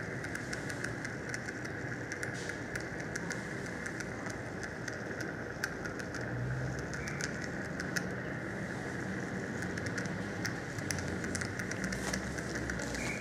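Dental surgical equipment running during oral surgery: a steady hiss with many scattered small crackling clicks throughout.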